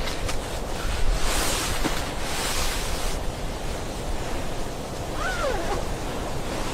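Wind rushing steadily, with two stronger gusts in the first few seconds.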